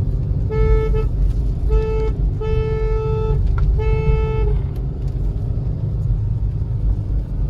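Car horn sounded four times in quick succession, the third toot the longest, over the steady low rumble of a car driving uphill.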